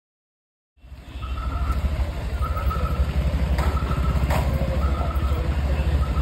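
Motorcycle engine running with a steady, fast-pulsing low rumble, starting about a second in. A short higher tone repeats about once a second over it.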